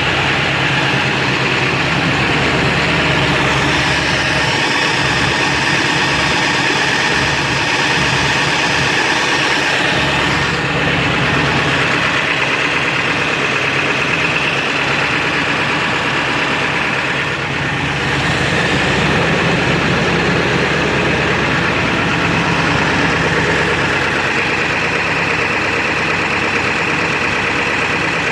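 7.3-litre V8 diesel engine running steadily at idle. The owner describes it as a rough idle with a knock and no power.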